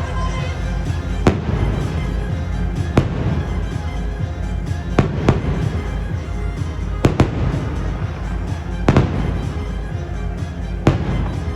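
Fireworks bursting with sharp bangs every second or two, sometimes two in quick succession, over loud show music.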